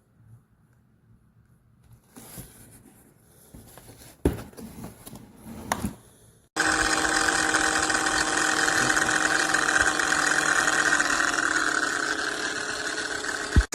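A few handling clicks and knocks, then about six and a half seconds in an electric angle grinder switches on suddenly and runs free at full speed with a steady high whine, until a click near the end.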